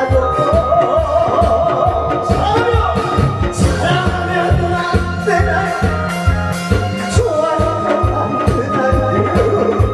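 A man singing a Korean song over a backing track with a steady, even beat.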